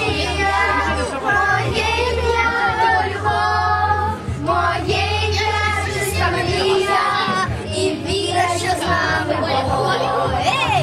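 Children singing a song over music with a steady bass accompaniment.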